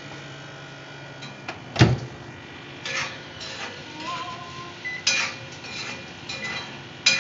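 Kitchenware being handled: a few sharp knocks and clinks, the loudest about two seconds in, the others spaced about two seconds apart.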